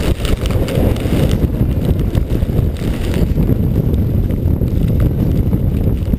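Strong wind buffeting a chest-mounted action camera's microphone: a loud, uneven, low noise that rises and falls without a break.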